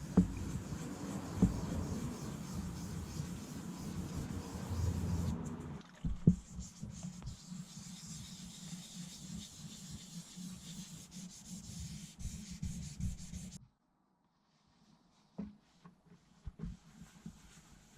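Hand-polishing a freshly wet-sanded pearl-white painted panel with cutting compound: steady rubbing, with a few sharp knocks of handling. The rubbing stops abruptly about three-quarters of the way through, leaving only faint scuffs.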